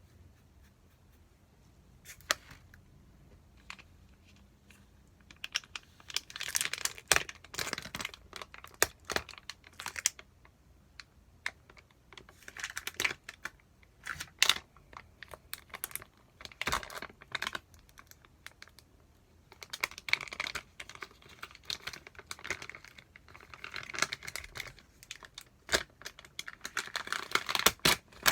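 Plastic food-delivery packaging being torn open and crinkled in three stretches of rustling, with many sharp clicks in between.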